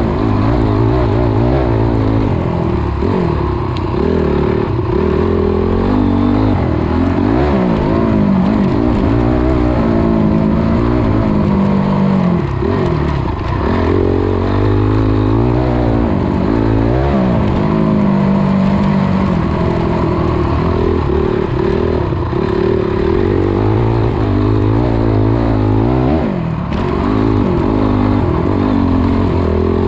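Dirt bike engine heard from on board, revving up and backing off over and over, its pitch climbing and dropping with throttle and gear changes as it is ridden around a motocross track.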